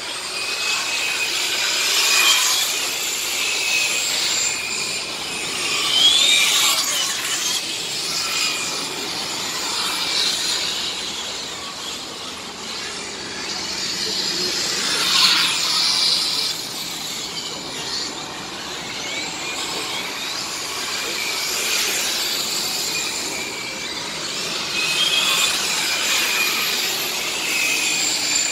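Several radio-controlled model race trucks lapping an asphalt track, their motors and drivetrains whining high, with the pitch rising and falling as the cars accelerate, brake and pass close by.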